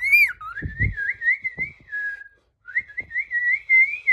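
A person whistling a wavering, warbling note in two long phrases with a short break about two seconds in, and a couple of low thumps about a second in.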